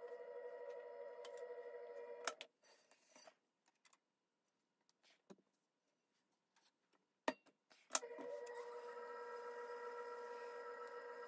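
Electric potter's wheel motor running with a faint, steady whine. It stops with a click about two seconds in, leaving only a few faint knocks. A little after the middle it restarts with a sharp click, whines briefly up to speed, then runs steadily again.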